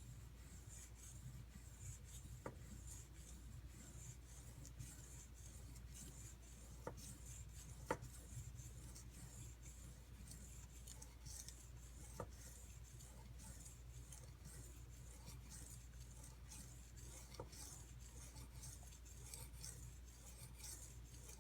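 Knife blade being stroked back and forth on a 320-grit sharpening stone with light pressure: faint, even rubbing strokes as the edge is thinned and convexed, with a few light clicks.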